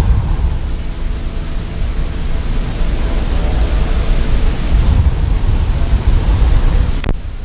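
Steady rushing noise with a heavy low rumble that swells and eases, cutting out for an instant near the end.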